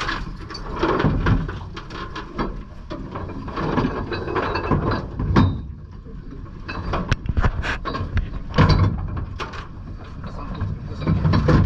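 Irregular clunks and clatter of gear being handled on a boat, over a steady low rumble.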